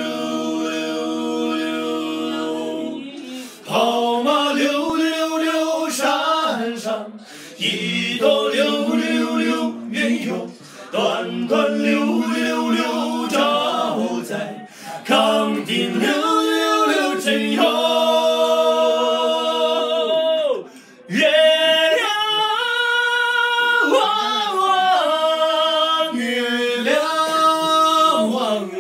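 Five male voices singing unaccompanied in harmony, held chords sung in phrases with short breaks for breath between them.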